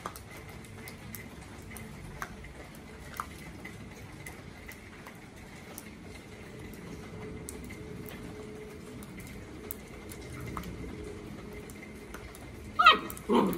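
Light rain with scattered drips pattering on wet concrete, then near the end a fox terrier puppy barks twice in quick succession.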